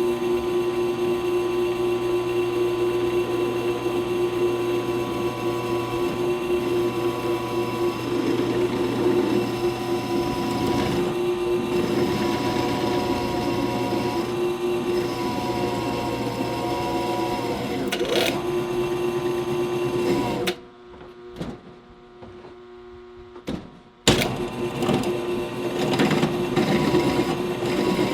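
Drill motor running steadily with a constant hum as a half-inch pilot bit drills through steel. About twenty seconds in it drops away for roughly three seconds, then comes back with a sharp click.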